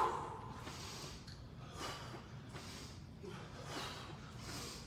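A man breathing hard from exertion during squat jumps: a run of forceful, noisy inhales and exhales, about one a second.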